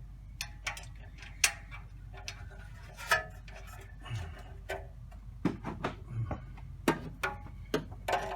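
Irregular metallic clicks and clinks of a socket ratchet and hardware as a nut is threaded onto an exhaust manifold bolt.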